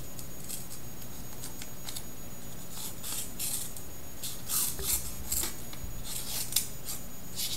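Strider PT folding knife's S30V blade slicing through a sheet of paper in a paper-cut sharpness test: a run of short, dry rasping cuts, faint at first and louder and closer together from about three seconds in.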